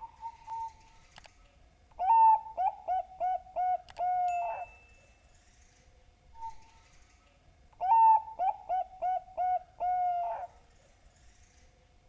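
Bangkok zebra dove (perkutut) singing its cooing song twice. Each phrase is a quick run of about seven short coos ending in a longer note.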